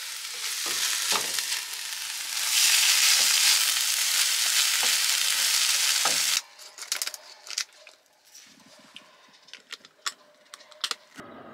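Chicken and broccoli sizzling in a frying pan, with a wooden spatula stirring and scraping through it. The sizzle cuts off suddenly about six seconds in, leaving a few light clicks and taps.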